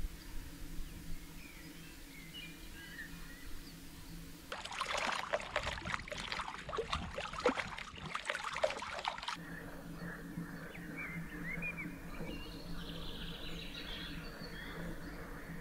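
Water splashing and trickling close by for about five seconds in the middle, dense and crackly. Before and after it, small birds sing faintly over a steady low hum.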